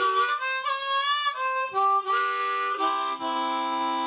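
Harmonica (blues harp) playing a short phrase of chords, with wavering, bent notes in the first second and a half, then settling into one long held chord about three seconds in.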